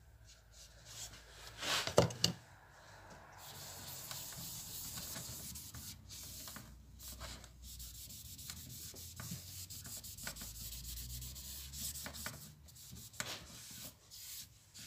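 A cloth rubbing thinned Danish oil onto the veneered wooden dashboard panel of a Jaguar XK140, a steady hiss of wiping strokes. A single sharp knock comes about two seconds in.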